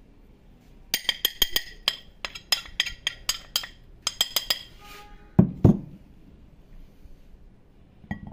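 Metal spoon tapped rapidly and repeatedly against a ceramic dish, about twenty bright ringing clinks over some four seconds, knocking off the last of the spices. A little after the clinks stop, two loud dull knocks follow in quick succession.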